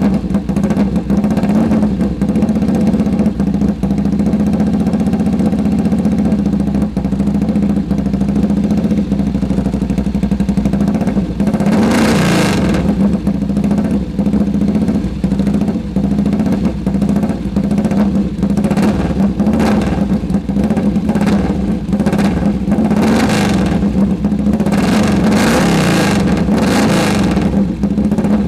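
Freshly rebuilt sidecar motorcycle engine running on its first start after the rebuild. It holds a steady idle, with a short rev about halfway through and several more revs near the end.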